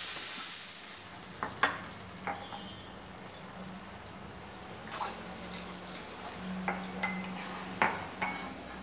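Wooden spoon stirring vegetables and water in a black wok, knocking and scraping against the pan in scattered light knocks over a low steady hum.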